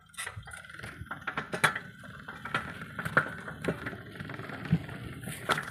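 Bicycle rolling over a rough dirt path: tyres crunching over the ground while the bike rattles with irregular clicks and knocks, the sharpest about one and a half and three seconds in.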